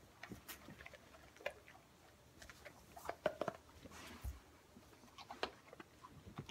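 Soft rustling and scattered light clicks of a nylon grooming sling and its clips being handled and pulled onto a dog. A few sharper clicks and a brief faint squeak come about three seconds in.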